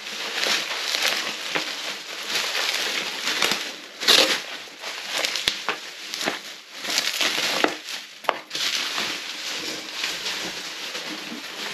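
Plastic bubble wrap rustling and crinkling as it is unwrapped and handled, with a louder crackle about four seconds in.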